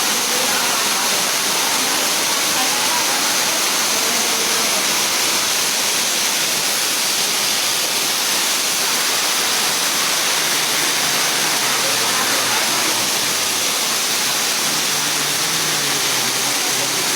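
Water rushing steadily and without a break as it is flushed through an air-conditioning pipe, a constant hissing rush.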